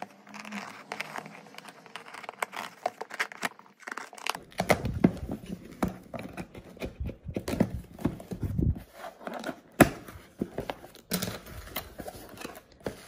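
A plastic courier mailer being torn and cut open with scissors, then a cardboard box opened and bubble-wrap packing handled. The sound is irregular crinkling, tearing and snipping, with one sharp click about ten seconds in.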